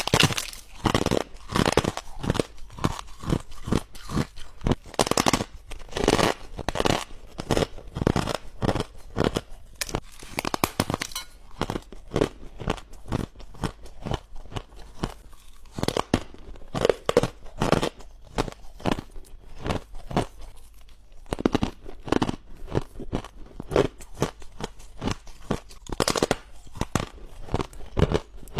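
Hard ice being bitten and chewed close to the microphone: sharp, irregular crunches, a few a second, with cracking and grinding between them.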